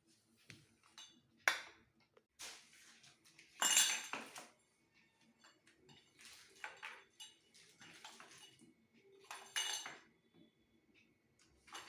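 Metal kitchen-rack parts clinking and clattering as they are handled and fitted together during assembly. There are several separate bursts of metal-on-metal knocks with a short ring; the loudest come about four seconds in and again near ten seconds.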